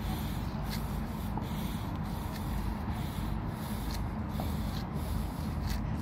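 Steady low outdoor rumble, with soft scuffs about every half-second to second from footsteps of someone walking.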